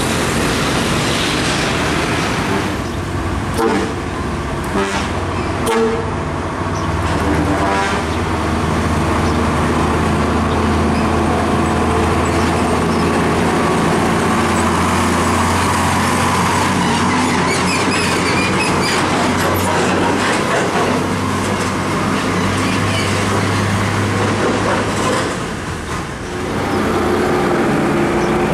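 Heavy diesel flatbed trucks running past in traffic, a low steady engine drone, with horn toots over it.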